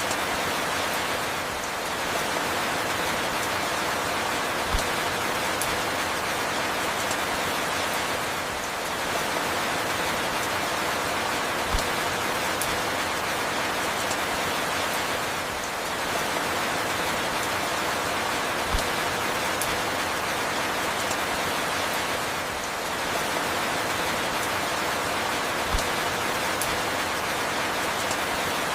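Steady falling rain, a dense even hiss, with a short low knock about every seven seconds.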